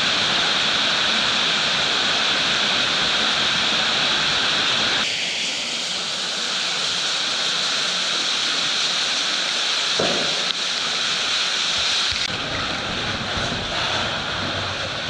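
Steady rushing hiss of water falling and spraying down a cave shaft, its tone changing abruptly about five seconds in and again about twelve seconds in. A short knock about ten seconds in.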